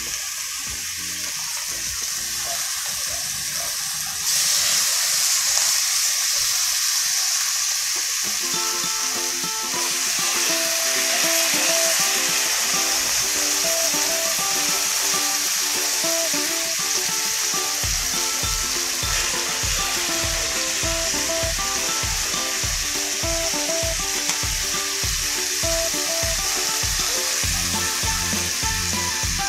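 Chicken thighs sizzling as they fry in olive oil in a pan, the sizzle growing louder about four seconds in. Background music with a melody comes in about eight seconds in, with a steady beat added from about eighteen seconds.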